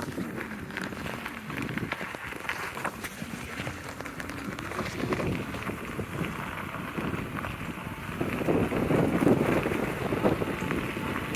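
Wind buffeting the microphone outdoors, an uneven rumbling rush that grows louder about eight seconds in.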